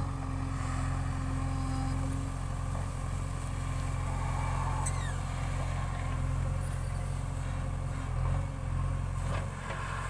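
JCB 3DX backhoe loader's four-cylinder diesel engine running steadily under load while the backhoe arm digs and swings a bucket of soil.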